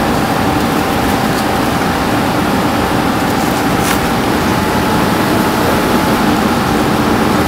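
Commercial kitchen ventilation running: a steady, loud whooshing rush of air with a faint constant whine over it. There is a single light click about four seconds in.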